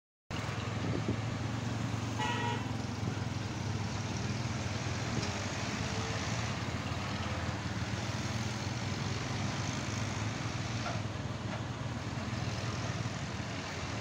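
Road traffic with a tractor's engine running steadily close by, cutting in suddenly just after the start. A brief honk sounds about two seconds in.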